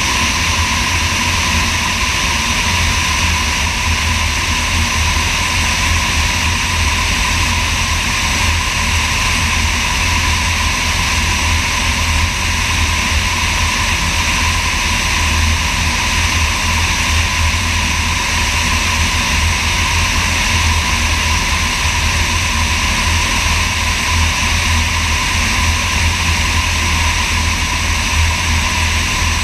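Sonex light aircraft's engine and propeller droning steadily in flight, heard from a camera under the wing with wind rushing over its microphone.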